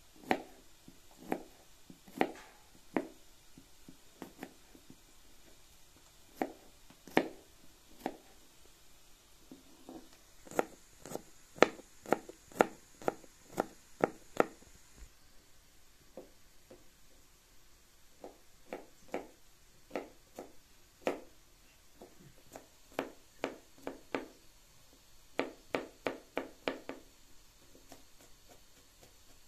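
Kitchen knife slicing and mincing garlic cloves on a plastic cutting board: sharp taps of the blade on the board, in runs of quick strokes with short pauses between, and a fast cluster of strokes near the end.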